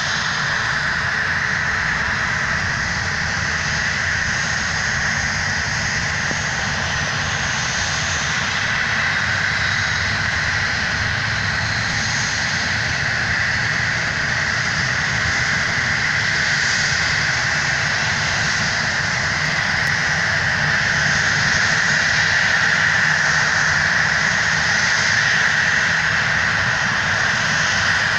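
Boeing 737-700's CFM56 jet engines running with a steady whine and rumble, growing slightly louder in the last third.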